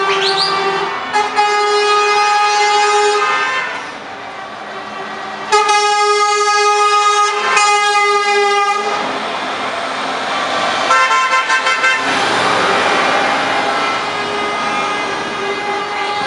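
Truck air horns blowing several long blasts in a row, the last one short and broken, as tractor-unit lorries drive slowly past. Near the end the diesel engine and tyres of a passing truck take over.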